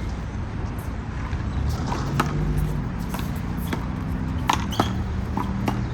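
Sharp slaps of a small rubber handball being struck by hand, hitting the wall and bouncing on the court: one about two seconds in, then several in quick succession near the end. A steady low hum of city traffic runs underneath.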